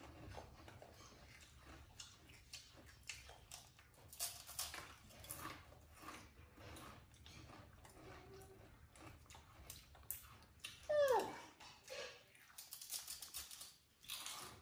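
Crisp rolled wafer cookies crunched and chewed, with small clicks and crackles of handling. About eleven seconds in comes the loudest sound, a short squeal falling sharply in pitch, from the young macaque, and a second, shorter one just after.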